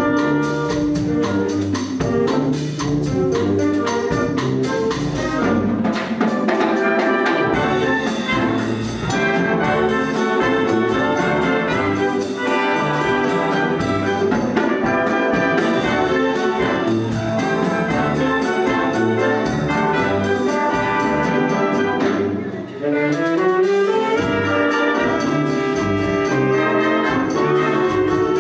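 Concert wind band playing a Cuban-style piece: clarinets, saxophones, brass and drum kit together over a steady beat. Near the end the music breaks off for a moment and comes back in with a rising slide.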